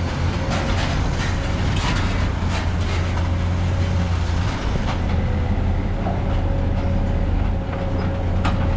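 Heavy diesel engine running steadily with a low rumble, with scattered light clanks and one sharper click near the end.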